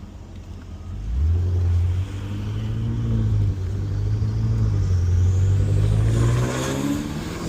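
Tuned BMW M5 Competition's twin-turbo V8 with a titanium valved exhaust accelerating hard. Its note climbs, with brief drops at upshifts about two and three and a half seconds in, then rises steadily before cutting off sharply at the end.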